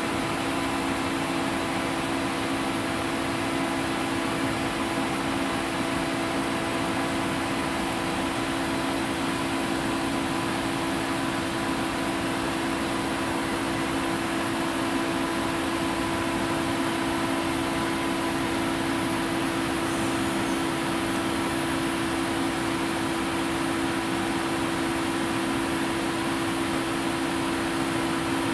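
Steady machine hum with two strong low tones and fainter higher tones over an even hiss, unchanging throughout, like cooling fans or ventilation running.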